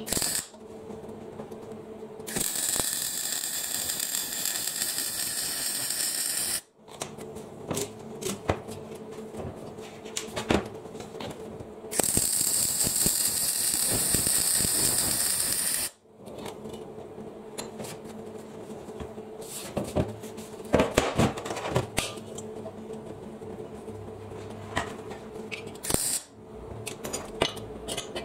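MIG welder arc sizzling and crackling in two runs of about four seconds each, welding steel. Between the runs, a quieter steady hum with scattered clicks and knocks.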